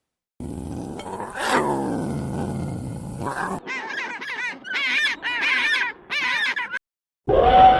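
Animal calls: one long call falling in pitch, then about five short bursts of quick, warbling bird calls.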